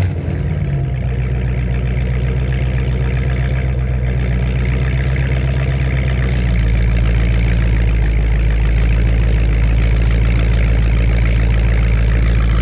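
Dodge Charger Scat Pack's 6.4-litre HEMI V8 idling steadily through a straight-piped exhaust, with the mid mufflers and resonators deleted but the catalytic converters still in. Its idle note drops lower about six and a half seconds in, as the idle settles after the startup.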